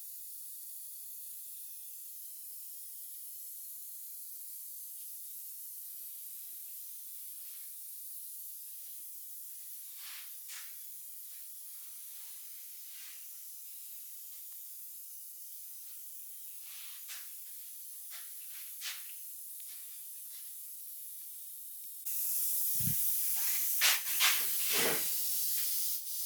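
Steady, faint, high-pitched hiss with a few soft clicks. About 22 seconds in the hiss jumps louder, and several sharper knocks come with it.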